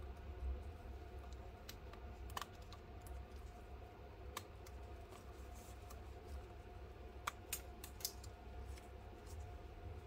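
Scattered light clicks and taps from gloved fingers handling a tablet's charging-port board and flex cable in its plastic midframe, with a few sharper clicks grouped near the end, over a steady low hum.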